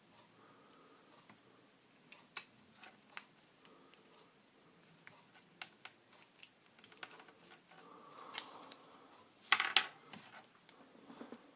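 Light clicks and taps of small plastic and metal parts being handled: an 18650 cell in a battery holder and a charger board being fiddled into contact. A cluster of sharper, louder clicks comes about nine and a half seconds in.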